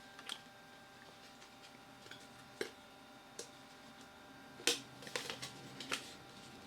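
Light clicks and rustles of RAM memory sticks being handled and taken out of their packaging, about half a dozen small knocks spread unevenly, the strongest near the end.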